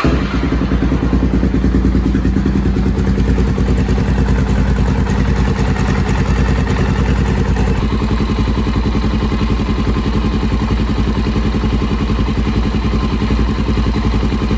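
Suzuki DRZ400SM big-bore (434 cc) single-cylinder four-stroke engine running steadily when warm, with a regular ticking. The owner later concluded the tick is the normal automatic compression release, not a valve or cam chain fault. Its note shifts slightly about halfway through.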